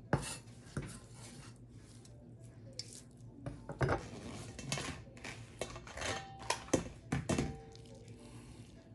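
Kitchen utensils and dishes clinking and knocking against each other at an irregular pace, a few strikes leaving a brief metallic ring.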